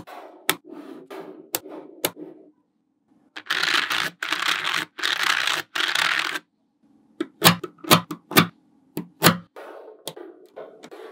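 Small magnetic balls clicking and rattling against each other as strips are handled and snapped into place. About a third of the way in comes a scraping run in three stretches of about a second each, a white plastic card rubbed along the rows of balls, followed by several sharp clicks as balls snap onto the wall.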